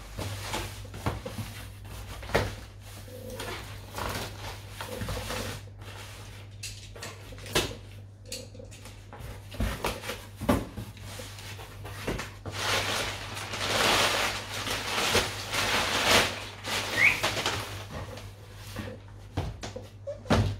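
A cardboard shipping box being opened and unpacked by hand: flaps knocking and scraping, with a long stretch of packing paper rustling about two-thirds of the way through and a brief rising chirp just after it. A steady low hum runs underneath.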